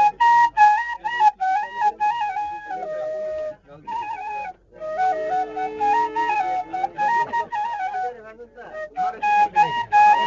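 Background music: a flute playing a melody in short stepwise phrases, with brief pauses between phrases.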